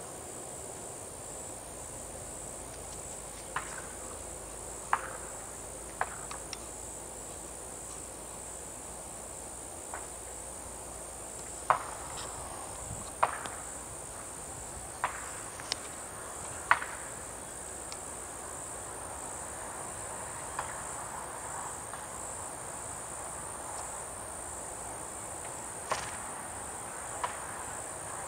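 Steady high-pitched insect chorus, with a dozen or so sharp clicks scattered irregularly through it.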